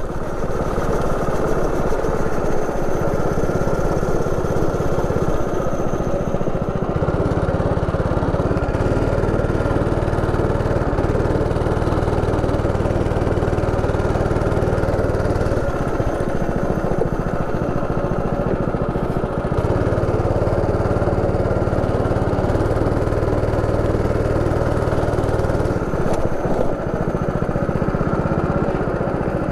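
160 cc single-cylinder four-stroke go-kart engine running close up. The engine note shifts in steps several times, about a quarter, half and three-quarters of the way through.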